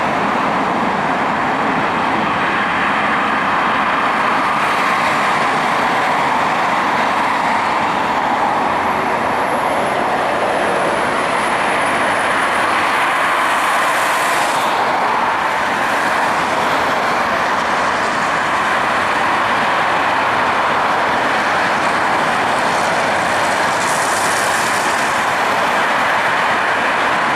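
Ilyushin Il-62M airliner's four rear-mounted Soloviev D-30KU turbofans running at climb power, a steady jet roar from the departing aircraft. A faint high, slightly falling whine is heard for a few seconds near the middle.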